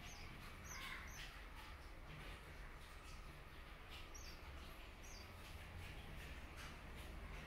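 Small birds chirping faintly: four short, very high chirps, a pair about a second in and another pair around four to five seconds in, over a low steady hum.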